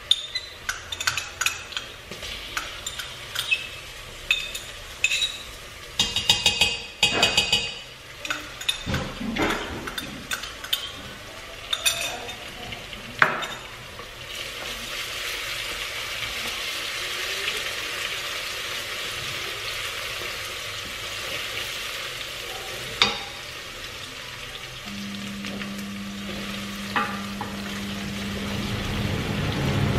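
Chopped onions frying in oil in a stainless steel pot. In the first half a spoon clicks, knocks and scrapes against the pot while stirring. From about halfway the frying settles into a steady sizzle with only an occasional knock.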